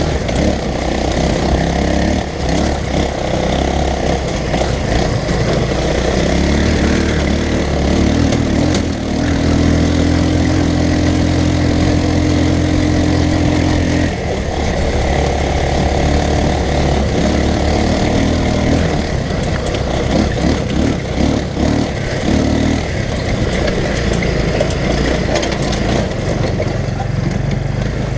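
Off-road go-kart engine running, its speed rising and falling, holding one steady note for several seconds around the middle.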